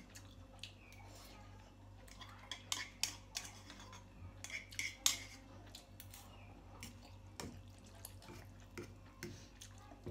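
A person eating instant ramen noodles from a bowl: short slurps and mouth sounds with light clicks of a utensil against the bowl, coming in scattered bursts that are thickest between about two and five seconds in.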